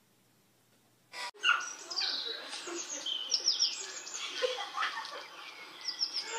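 Small birds chirping: many quick, high, overlapping chirps and short falling calls start after about a second of near silence.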